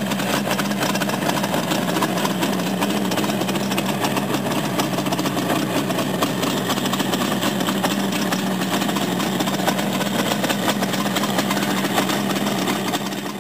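Kawasaki H1A 500 Mach III air-cooled two-stroke triple idling steadily on its first start. The sound cuts off near the end.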